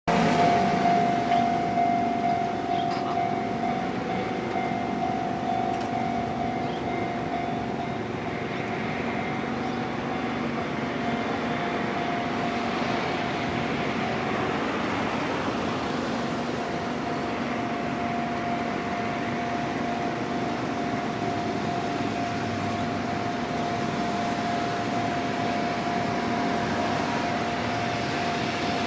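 Japanese level-crossing warning alarm ringing steadily, over the noise of a train on the JR Gotemba Line; the train noise is loudest at the start and swells again about halfway through.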